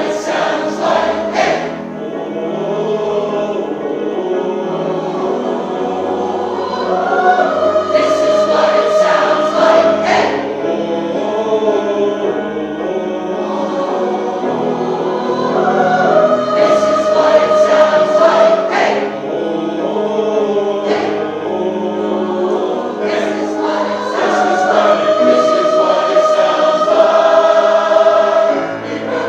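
Community chorus singing a choral arrangement of a pop song with accompaniment, in long held notes, the phrases recurring about every eight seconds with crisp consonants between them.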